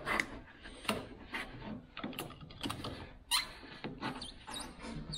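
Razor knife cutting through an old, dried rubber window seal around the rear glass, squeaking and scraping in short irregular strokes, about one or two a second, the loudest a little past three seconds in.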